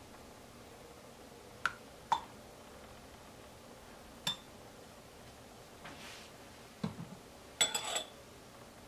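Metal spoons clinking against a glass measuring cup: a few separate light clinks, then a louder clatter of several clinks near the end.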